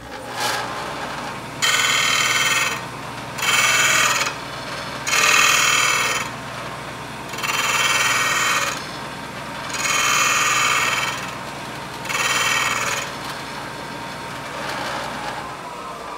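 A Shopsmith's motor runs steadily, spinning its 12-inch abrasive disc. A round-nose lathe scraper held in a sharpening guide is slid into the disc again and again: six loud grinding hisses of about a second each, every two seconds or so, then a fainter seventh near the end. The grinding is reshaping the scraper's blunt tip to raise a cutting burr across its face.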